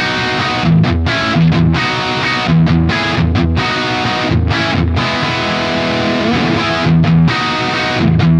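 Distorted electric guitar played through a Peavey 6505 1992 Original tube amp at high gain: a heavy rhythm riff of chugging low notes broken by short stops.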